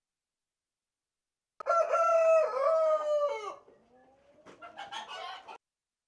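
Black Ayam Cemani rooster crowing: one long, loud crow in stepped notes that falls away at the end. About a second later comes a shorter, quieter, rougher call, and the sound cuts off abruptly just before the end.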